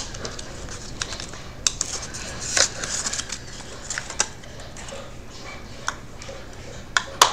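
Scattered sharp clicks and light crackling from a powder blush compact and its packaging being handled and opened, with a louder pair of clicks near the end.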